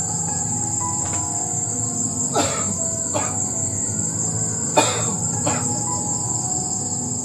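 Evening insect chorus: a steady, high-pitched shrill that never lets up, broken by four short sharp snaps, the two loudest about two and a half seconds apart.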